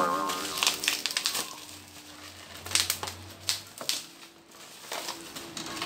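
Plastic packaging crinkling and crackling as a courier pouch is torn open and a bubble-wrapped box is pulled out and handled.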